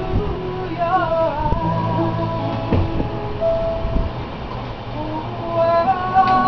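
Small acoustic band playing a song: piano and acoustic guitar with cajon strikes, and a woman singing.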